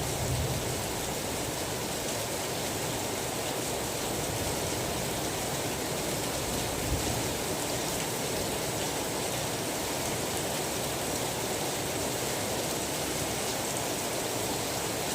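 Steady rain falling, an even hiss of many drops with no let-up, with a brief low thump about seven seconds in.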